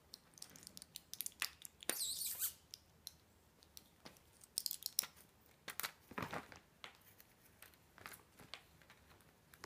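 A plastic-and-foil blister pack of pills crinkling and clicking as cats paw and bite at it: irregular small clicks and crackles, with louder crinkly bursts about two seconds in and again around five to six seconds.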